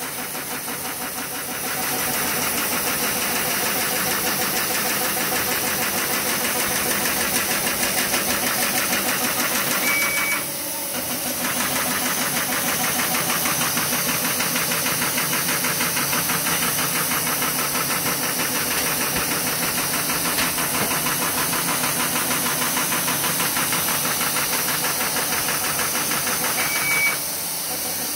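Horizon AFC-564AKT cross folder running and folding paper: a loud, steady, rapid mechanical clatter of the feeder and fold rollers that builds up about a second and a half in. A short high beep sounds twice, about a third of the way in and near the end, each followed by a brief drop in the clatter.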